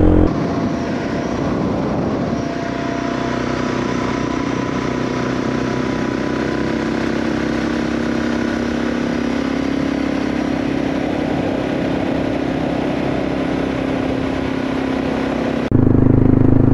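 Motorcycle engine running steadily at cruising speed while riding, an even hum with little change in pitch.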